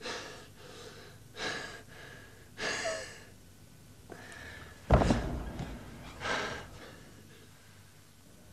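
Heavy breathing and gasps from exhausted fighters, come as separate breaths every second or so. About five seconds in there is a sharp thump, the loudest sound.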